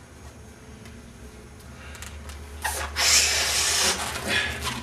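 A long twisting balloon being inflated: a rush of hissing air for about a second and a half, starting a little past the middle, with a shorter puff of air just after.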